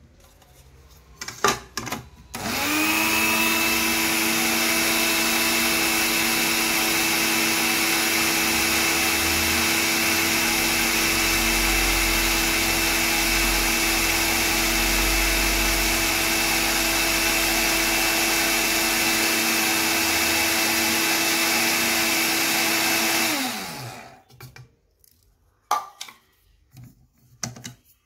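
Small electric blade grinder grinding dried neem leaves to powder. A few clicks as it is set up, then the motor spins up about two seconds in, runs with a steady whine for about twenty seconds and winds down with a falling pitch. A few clatters follow as it is handled.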